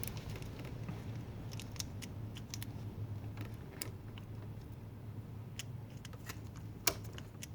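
Scattered small clicks and taps as the handlebar starter switch of a 2005 Suzuki GSX-R600 is worked, over a low steady hum, with one sharper click near the end. The switch is failing, cutting the headlight on and off.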